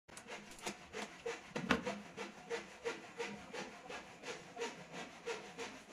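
Rhythmic scraping strokes on wood, about three a second, like hand sawing or rasping, with one louder stroke about two seconds in.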